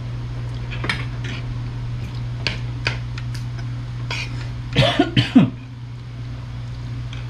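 A person coughing three or four times in quick succession about five seconds in. Scattered light clicks of spoons and dishes come before it, over a steady low hum.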